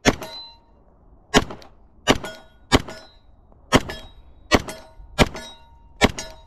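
Glock 17 Gen 4 9mm pistol firing eight shots at a steady, unhurried pace, a little under a second apart. Each shot is a sharp crack followed by a short ring.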